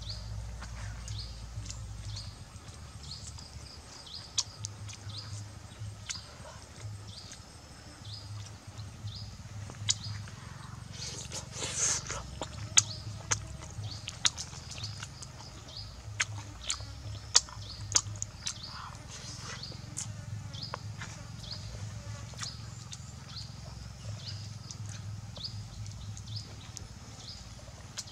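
Outdoor ambience of small wild creatures: short high chirps repeating every second or so, with scattered sharp clicks and a low hum beneath.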